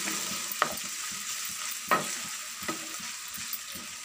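Raw prawns sizzling in hot oil in a frying pan, a steady hiss, while a wooden spatula stirs them, knocking sharply against the pan three times.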